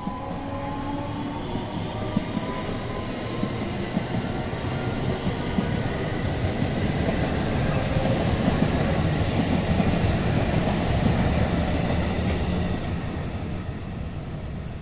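JR West local electric train accelerating past, its traction motors whining in several tones that rise steadily in pitch over a heavy rolling rumble, with occasional wheel clacks. It grows louder to a peak a little past halfway, then eases off.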